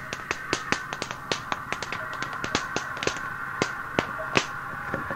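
Fingers snapping in a quick, uneven run, about four or five snaps a second, on an old cassette tape recording with a steady hum under it.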